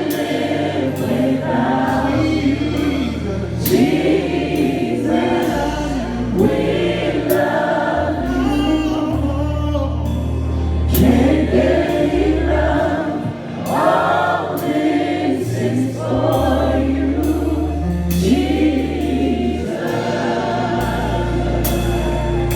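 Gospel choir singing with a live band: held bass notes that change every second or two, and drum hits.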